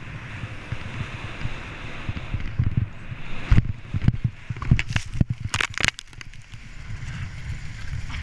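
Skis hissing and scraping over packed snow, under a steady wind rumble on a GoPro microphone. About three and a half seconds in, a run of sharp knocks and clatters comes over roughly two seconds, then the sliding and wind noise carries on.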